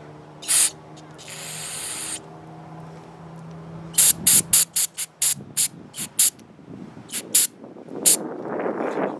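Aerosol cleaner hissing from its nozzle onto a spark plug to wash off carbon: one short spurt, then a longer hiss of about a second, then a quick run of about a dozen short spurts in the second half.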